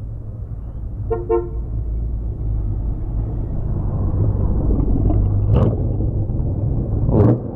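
Two short vehicle horn beeps in quick succession about a second in, over the steady low rumble of a moving motorcycle's engine and wind. Two brief rushes of noise come in the last few seconds, the second the loudest.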